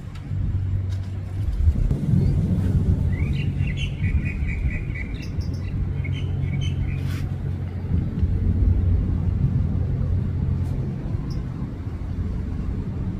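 Steady low rumble of a four-engine Airbus A380 jetliner climbing out overhead. About three seconds in, a small bird chirps a quick run of high notes for a few seconds.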